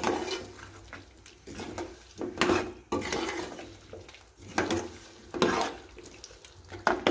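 Cooking spoon scraping and stirring in a metal pan, in irregular strokes every second or so, as fried potato cubes are mixed into a tomato and spice masala.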